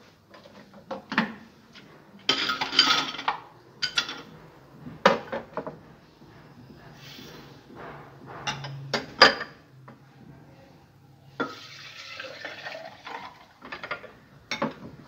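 Kitchen dishes being handled: knocks and clinks of glass bowls and a glass blender jar with its lid taken off. Sugar is poured into the jar with a brief rustling hiss about two seconds in, and milk is poured in from a bowl near the end.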